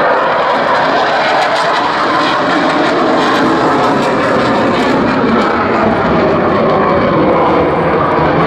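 Belgian Air Force F-16's single turbofan engine at high power, a loud, steady, rough jet noise with a crackle as the jet pulls up into a climb with afterburner lit.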